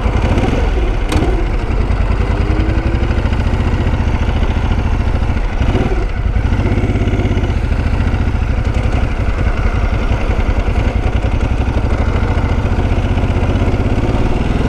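Ducati motorcycle's V-twin engine idling with a steady low beat, then pulling away about six seconds in as the revs rise, and running on at low speed.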